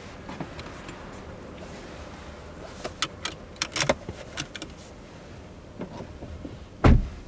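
Small sharp clicks and taps from handling inside a car's cabin, bunched together about three to four and a half seconds in, then a single heavy low thump near the end.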